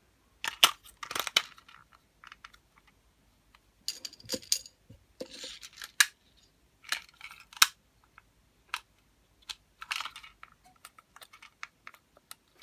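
Sharp plastic clicks and short rattling and rustling as an AA battery is fitted into the battery compartment of a Plarail toy train's motor car and the car is handled.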